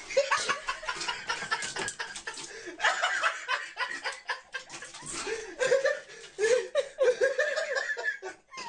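Human laughter in repeated bursts, strongest over the second half.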